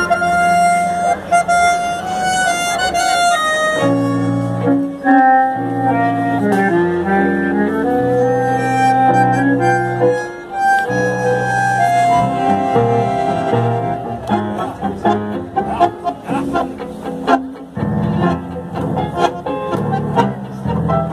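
Live tango sextet of violins, bandoneon and double bass playing a tango. Long held melodic notes give way, about two thirds of the way in, to a choppy rhythm of short accented strokes.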